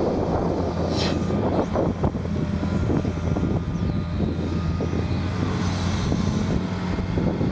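Excavator's diesel engine running steadily as the boom and bucket-and-thumb lift a gripped log away from the ground, with a short knock about a second in.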